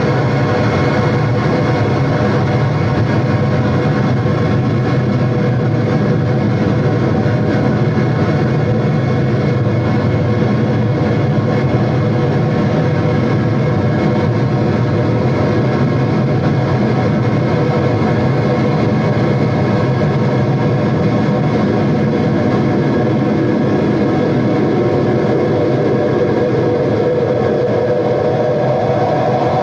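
Live noise music: a loud, unbroken wall of droning electronic noise, many steady tones layered over a dense rumbling haze, with a higher drone swelling near the end.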